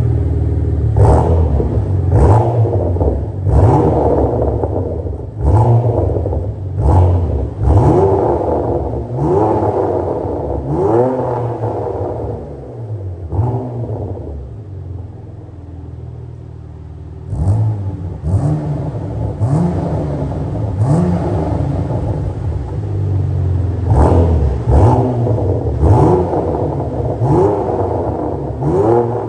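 Porsche Macan V6 free-revving through an EVOX Valvetronic aftermarket exhaust with its valves open. The engine is blipped quickly about once a second, each rev rising sharply and dropping back. A few seconds before the middle it settles to a steady idle, then a second run of blips follows.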